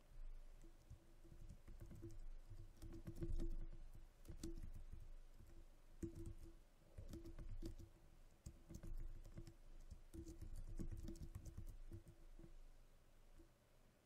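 Typing on a computer keyboard: keystrokes clicking in uneven runs with short pauses between them.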